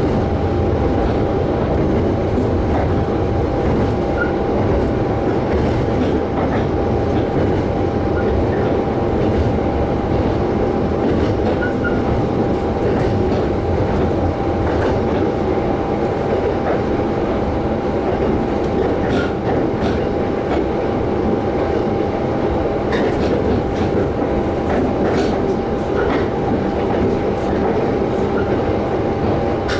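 Diesel train heard from inside the passenger car while it runs at a steady speed: even running noise with a steady whine, and faint clicks of the wheels over rail joints now and then.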